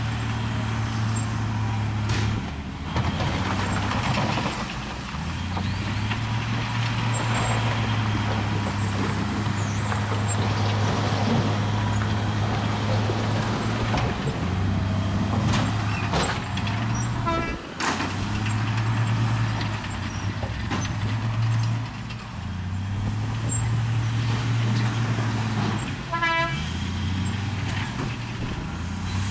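Bulldozer's diesel engine running under load, its pitch sagging and recovering over and over as the blade pushes, with rough scraping noise over it. Brief high squeals twice, about halfway through and near the end.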